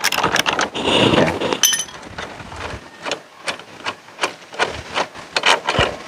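Metal scraping, then a string of irregular light clicks and knocks, as the lower mounting bolt of a Honda ADV 150's rear shock absorber is pulled out and the shock worked free.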